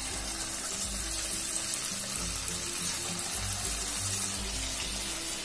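Moong dal vadas (bhallas) frying in a pan of hot oil, a steady sizzle under background music with a slow, stepping bass line.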